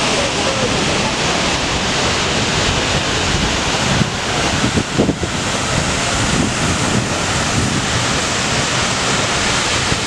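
Seljalandsfoss waterfall plunging into its pool: a loud, steady rush of falling water, with wind buffeting the microphone about four to five seconds in.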